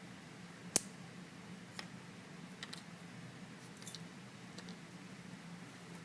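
Small sharp clicks and taps of metal lock parts being handled while a padlock is taken apart: one crisp click about a second in, then a few fainter ones spread through the rest.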